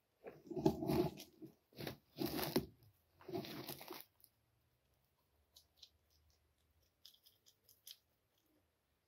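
Fish being cleaned by hand: four short bursts of scraping and crunching in the first four seconds, then a few faint clicks.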